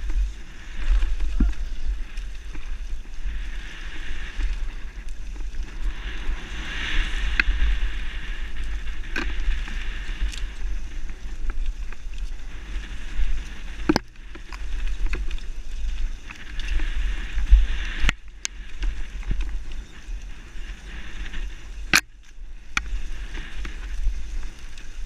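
Wind buffeting a helmet camera's microphone as a downhill mountain bike rattles over a rough dirt trail, with a few sharp knocks from the bike in the second half.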